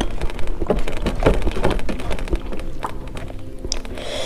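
Close-miked eating sounds: chewing with wet mouth clicks and smacks, and fingers mixing rice and curry on a metal plate, as a run of short, irregular clicks and crackles.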